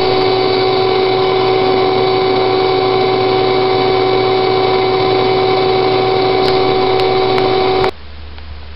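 Bee vacuum running steadily with a constant whine, its hose held up to the swarm to suck the bees in; it cuts off suddenly near the end, leaving a low hum.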